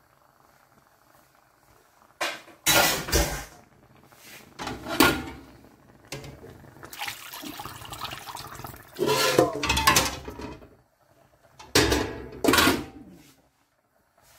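A metal cooking pot and utensils clattering and scraping in about five bursts, beginning about two seconds in.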